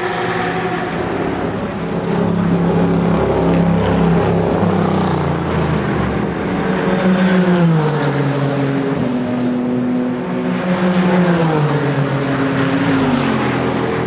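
Race car engines running, their pitch falling again and again in short steps, like a sequential gearbox downshifting under braking, over a steady mechanical din.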